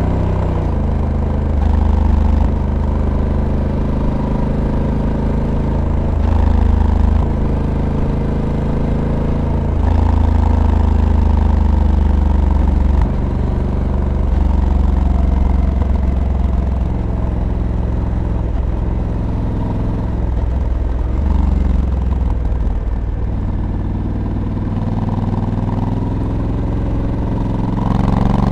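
Honda Africa Twin's 1084 cc parallel-twin engine running under way, heard onboard the motorcycle. The engine note steps up and down several times as the revs change.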